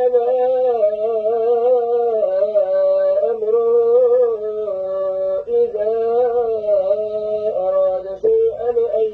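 A man's voice chanting a long, ornamented melody without clear words, in the style of Quran recitation, played through a computer's speakers. The pitch moves in steps between held notes, with a brief break about eight seconds in.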